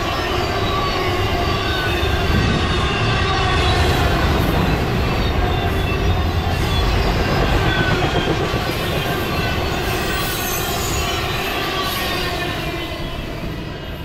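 BNSF intermodal freight train's container cars rolling past close by: steady rumble of wheels on rail with thin wheel squeals. The noise eases off near the end as the last car goes by.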